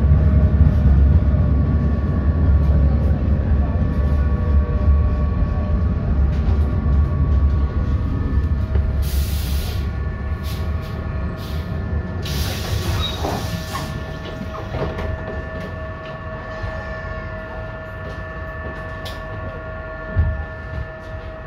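ASEA M31 articulated tram heard from inside, slowing to a stop: its low running rumble fades away over the first several seconds, leaving a steady whine from the tram's equipment. There are two loud hisses of compressed air about nine and twelve seconds in, and a short thump near the end.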